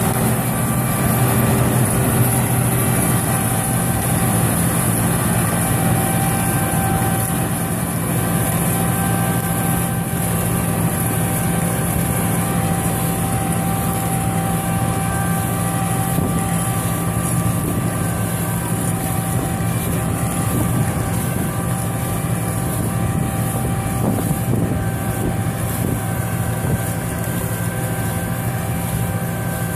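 Laverda M304 LS combine harvester running under load while harvesting: a steady machine drone with several steady whining tones, easing slightly as the machine moves away.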